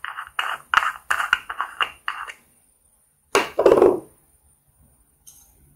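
Plastic lid of a small cosmetic glitter jar being twisted open: a run of short scraping rubs over about two seconds, then one louder, deeper knock at about three and a half seconds.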